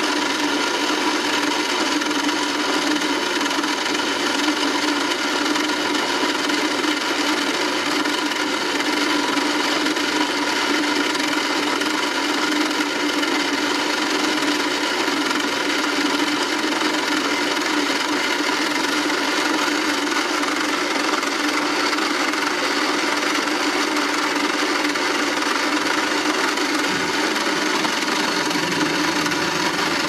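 Small motor of a vintage 1990 Barbie toy washing machine running steadily, turning the drum with the clothes in it: a constant mechanical hum with a strong low tone.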